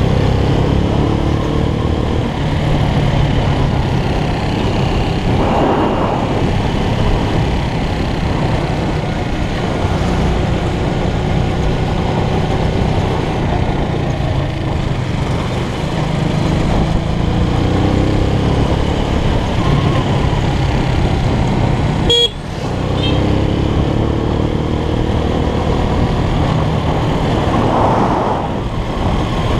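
Motorcycle engine running under way, with heavy wind rumble on the microphone. The revs rise and fall several times as the bike accelerates and shifts. A sharp click about twenty-two seconds in is followed by a brief dip in level.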